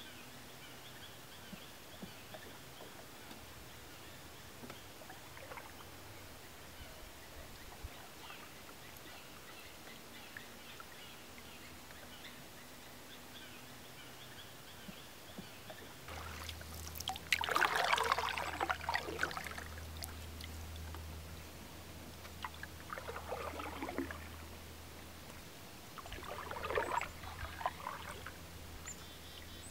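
Wooden canoe paddle stroking through calm lake water. A little past halfway come three splashing, dripping strokes a few seconds apart, the first the loudest. Before them there is only faint quiet ambience with a few light ticks.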